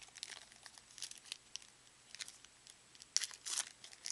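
Foil wrapper of a football trading-card pack being torn open and crinkled, with louder rustles about three seconds in.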